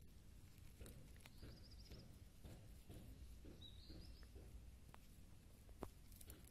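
Near silence: faint outdoor background with two brief, high, warbling bird chirps, one about a second and a half in and another near four seconds, and a few soft ticks near the end.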